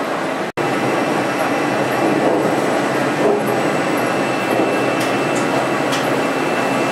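Rebuilt Royal 333 carton folder-gluer running: a steady, dense mechanical noise, with a thin high whine over it. The sound cuts out for an instant about half a second in.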